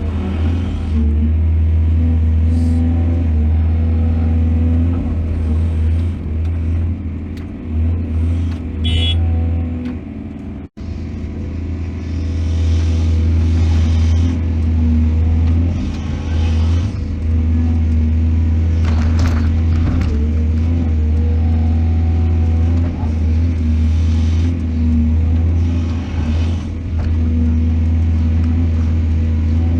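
Heavy diesel engines of an excavator and dump truck running with a deep, steady rumble that swells and eases as the machine works under load, with a few knocks. The sound cuts out for an instant about eleven seconds in.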